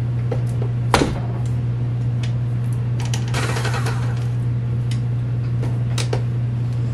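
A KitchenAid Artisan tilt-head stand mixer being handled, not running: a sharp clack about a second in, a rubber spatula scraping the steel bowl, and clicks and knocks as the mixer head is tilted up and set back down. A steady low hum sits underneath.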